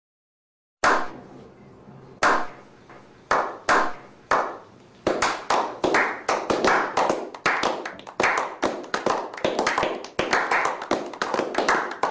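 A small group of people clapping: one loud clap with an echo, then slow, scattered claps that quicken from about five seconds in into brisk applause, which cuts off suddenly at the end.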